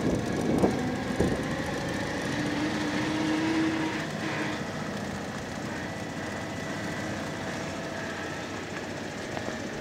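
Steady running noise of a car heard from inside, rolling slowly over rough dirt ground, with a few knocks in the first second or so.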